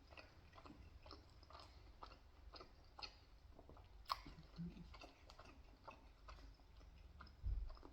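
Quiet chewing of pizza: a run of faint, irregular mouth clicks, with a dull low thump near the end.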